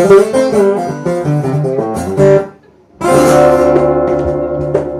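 Guitar playing a blues intro: a run of picked notes, a short break about two and a half seconds in, then a chord struck and left ringing.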